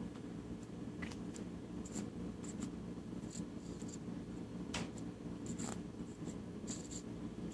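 Soft, steady snoring from a sleeper, with scattered small clicks and smacks from sucking movements of the mouth.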